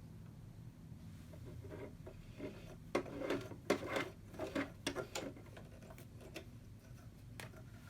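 Hands working the plastic parts of a Singer Cosplay sewing machine during threading: a run of short clicks and rattles over about three seconds, then a couple of single clicks, over a faint low hum.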